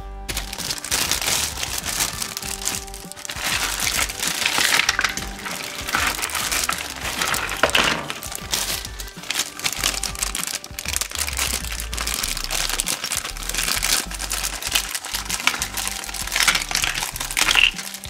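Clear plastic bags holding small toy pieces crinkling and crackling as hands handle and open them, over background music.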